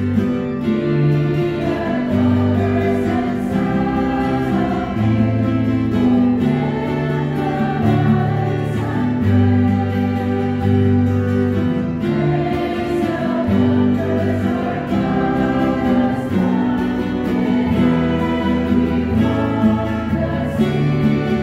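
Small mixed church choir singing a hymn, accompanied by two strummed acoustic guitars.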